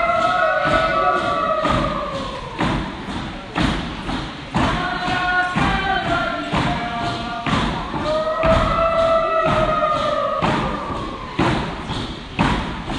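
A group of voices singing a traditional Tlingit dance song in unison, in long phrases that rise and fall, over a drum struck steadily about once a second.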